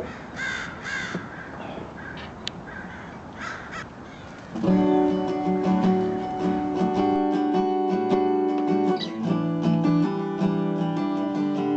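Acoustic guitar strummed with a pick: a few short sounds, then ringing chords start about four and a half seconds in and change about four seconds later.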